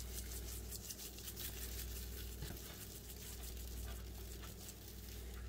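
Faint, soft ticking and rustling of hands working dry seasoning rub into raw chicken skin, over a steady low hum.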